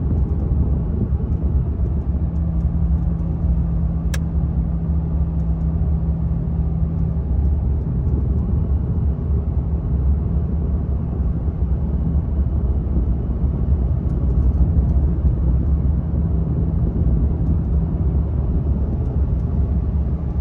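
Steady in-cab drone and low rumble of a 2023 Ram 2500's 6.7-litre Cummins turbo-diesel and the road, engine braking in fourth gear at about 57 mph on a long downgrade while towing a heavy trailer, with the turbo exhaust brake holding the speed. A faint steady hum comes and goes over the rumble, and there is a single sharp click about four seconds in.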